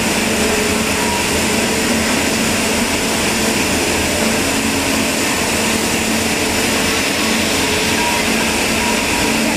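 Steady, loud machine noise, a continuous hiss with a rumble beneath it, with faint short tones coming and going.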